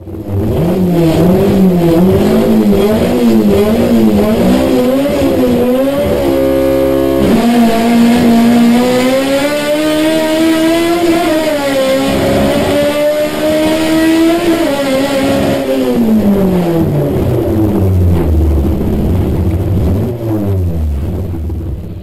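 Race car engine heard from inside the cockpit during a drag run: revs bounce up and down about twice a second at the line, hold steady for about a second, then climb in steps through the gears for several seconds before falling away as the driver lifts off.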